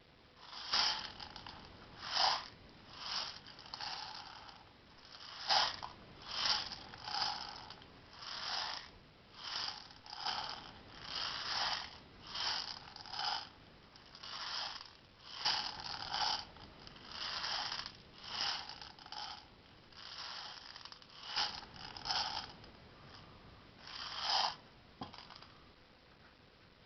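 Short rasping, ripping strokes repeated about once a second, from hand work on the parts being assembled.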